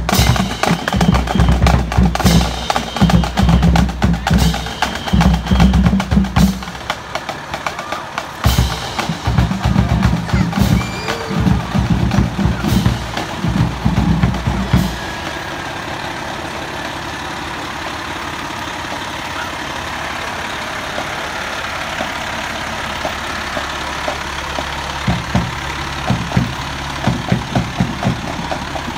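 Drums beating loudly in a steady rhythm, bass drum and snare, for about the first fifteen seconds. Then a fire engine's diesel engine runs steadily as the pumper rolls slowly past, with the drumbeat coming back faintly near the end.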